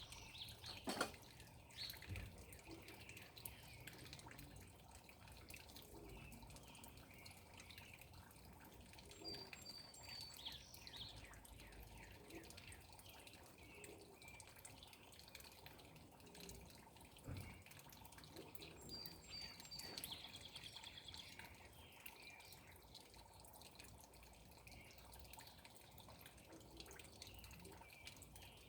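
Faint dripping and trickling water from a garden pond, with a bird repeating a short high call about every nine to ten seconds.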